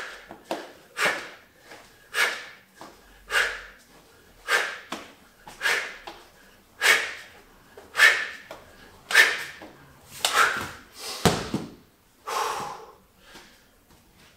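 A man's forceful exhales, about one a second, in time with spins of a Suples Bulgarian bag. About eleven seconds in comes a dull thud as the sand-filled bag is dropped onto the floor mat, and heavy breathing follows.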